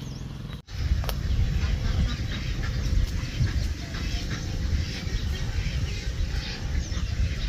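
Ducks calling and quacking, with short high calls scattered throughout. A loud low rumbling noise sits under them. The sound starts abruptly about half a second in.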